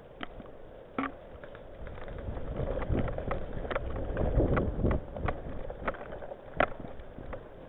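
Scattered sharp clicks and snaps at irregular intervals, with a stretch of low rumbling rustle in the middle, about two and a half seconds in until about five seconds in.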